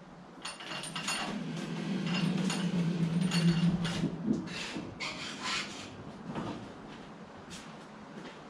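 Wheeled frame carrying a heavy lathe being pushed along the floor: a rolling rumble with clunks and rattles, loudest two to four seconds in, then easing off.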